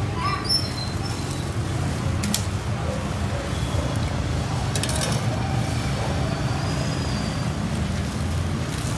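Steady low rumble of street traffic with faint background voices, and two sharp clicks, about two and five seconds in.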